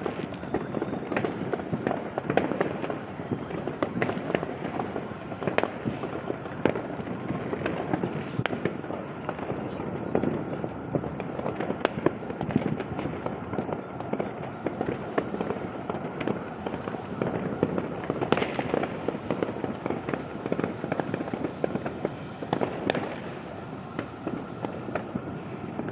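Fireworks and firecrackers going off all around in a steady, dense crackle, with many sharp individual bangs standing out several times a second.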